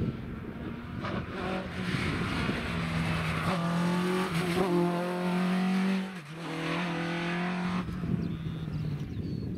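Rally car engine running hard as the car drives past on a tarmac stage. The note drops briefly around six seconds in, then picks up again. It eases off after about eight seconds as the car moves away.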